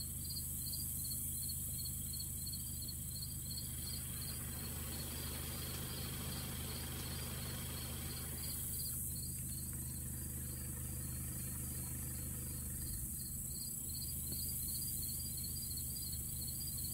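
Insects chirping in a steady rhythm of about three short pulses a second, with a low steady hum underneath.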